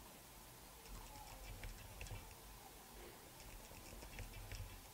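Faint scattered ticks and rubbing from a cloth and fingertips pressing on a camera's film screen protector, working to push out a trapped air bubble.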